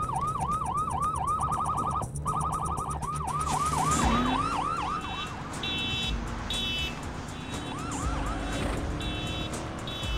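Police siren wailing in quick up-and-down sweeps, heard from inside the pursuing cruiser, fading out about five seconds in. From about four seconds in, a car horn sounds in short repeated blasts: the stolen Mazda Protegé's horn, set off remotely by its GPS tracking system.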